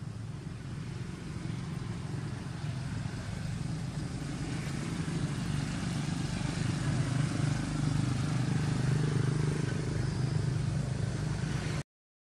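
Steady low hum of a motor vehicle engine, growing louder toward the middle and cutting out for a moment near the end.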